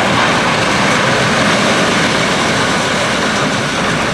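Debris from a partly demolished concrete arena coming down while dust billows: a loud, continuous rumble with no single crash standing out.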